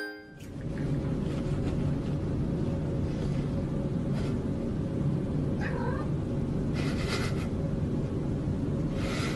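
A cat giving a short wavering meow about six seconds in, with a couple of other brief noisy cat sounds near the end, over a steady low background rumble.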